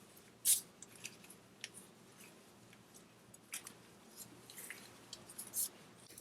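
A few sharp, scattered metallic clicks of a socket wrench tightening the oil strainer cap back on an ATV engine. The loudest click comes about half a second in.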